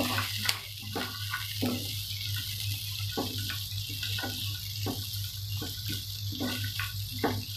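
Sliced onions, green chillies, garlic and cashews sizzling steadily in hot oil in a kadai, with a spatula scraping and tapping against the pan in irregular strokes, roughly two a second.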